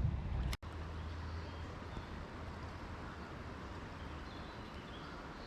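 Steady rush of creek water running over rapids, with a low rumble underneath. The sound drops out for an instant about half a second in.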